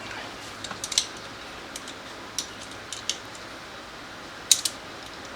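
Small plastic clips and lock rods clicking as they are worked back into place on a car door lock actuator: scattered light clicks, with a sharp double click near the end.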